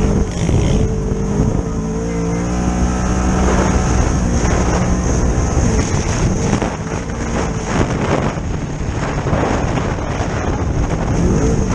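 Polaris RZR XP 1000 side-by-side's engine running under throttle at trail speed, its pitch rising and falling as the driver works the throttle, with wind buffeting the microphone.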